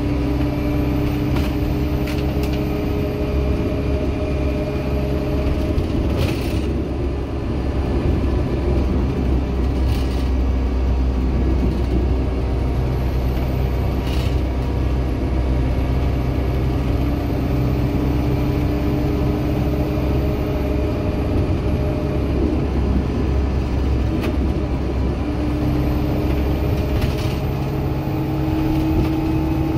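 Dennis Dart SLF bus heard from inside while under way: its Cummins diesel engine and Allison automatic gearbox drone steadily, with a pitched whine that shifts and rises a little near the end. A few short knocks and rattles from the body come about a third of the way in.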